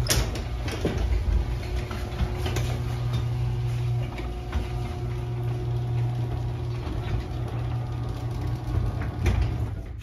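Chain-drive garage door opener raising the sectional door: a steady motor hum with light clicks from the chain and rollers. It starts abruptly and stops near the end when the door reaches the top.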